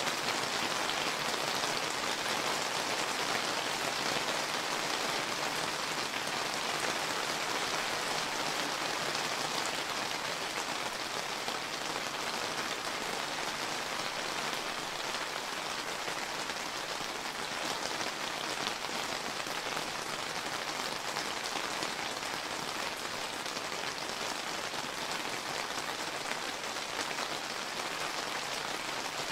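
Steady summer rain pattering on surfaces, a dense even hiss of falling drops with individual drop ticks.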